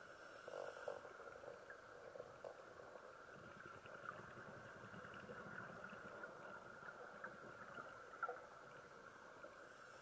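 Faint underwater ambience picked up through a camera's waterproof housing: a steady hiss with scattered small clicks, and a low rumble from about three to six seconds in, like a scuba diver's exhaled bubbles.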